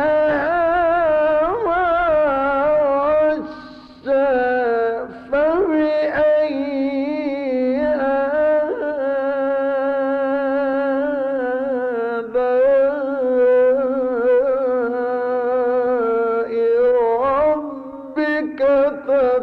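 A male Quran reciter's solo voice in the Egyptian mujawwad style, drawing out long, ornamented melodic phrases with vibrato. He pauses briefly for breath about four seconds in and again near the end.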